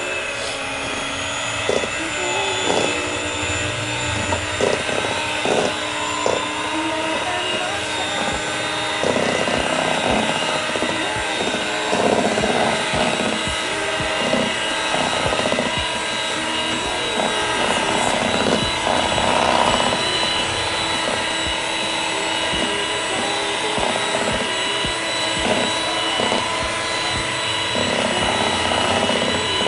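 Electric hand mixer running steadily with a motor whine, its twin beaters whipping condensed milk and all-purpose cream in a stainless steel bowl, with irregular clatter as the beaters touch the bowl.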